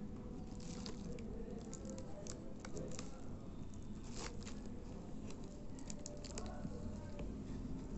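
Thin plastic shrink-wrap crinkling and crackling in irregular little bursts as it is peeled by hand off a cardboard smartwatch box, over a steady low background hum.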